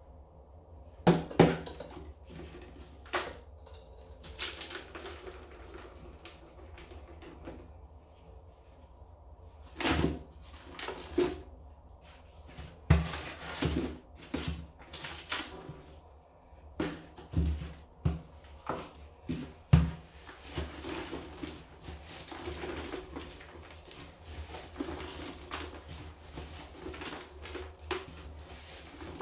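Small garbage cans and their lids handled in a bathtub: a string of knocks and bumps as they are set down and moved. From about two-thirds of the way through, a steady scrubbing inside one of the cans.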